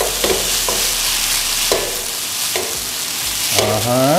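Fried rice sizzling in a nonstick wok as it is stir-fried, with a silicone spatula scraping and tossing it against the pan several times.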